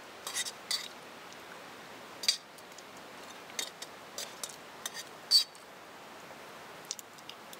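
Metal spoon clinking and scraping in a metal camp mug while eating: a few sparse clinks, the sharpest one about five seconds in, with a short ring.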